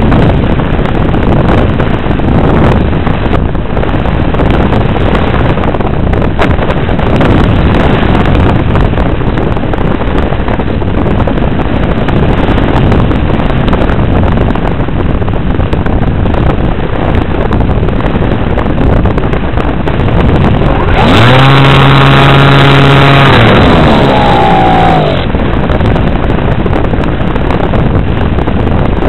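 Airflow rushing over the microphone of an RC flying wing's onboard camera in flight, a steady loud wind noise. About 21 seconds in, the model's motor and propeller run up with a pitched hum that rises, holds for about two seconds, then drops away, leaving the wind alone.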